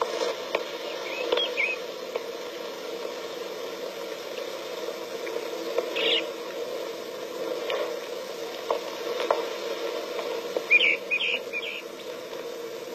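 Steady hiss and crackle of an old 1960s film soundtrack, with scattered clicks. Short high chirps come about a second in, again about six seconds in, and in a quick cluster near the end.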